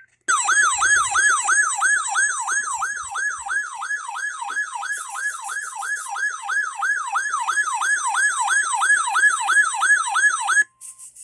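Electronic siren-like alert tone signalling a NOAA Weather Radio EAS required weekly test. The loud tone swoops down and back up about three times a second for about ten seconds, then cuts off sharply.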